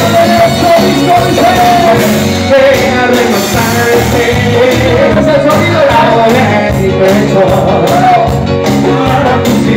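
Live Latin band playing a song, a male lead singer singing over a steady beat from congas, drum kit and keyboard.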